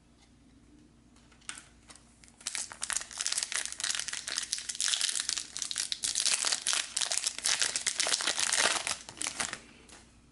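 Garbage Pail Kids Chrome trading-card pack wrapper crinkling and tearing as it is pulled open by hand: a dense crackle that starts about two seconds in and stops shortly before the end.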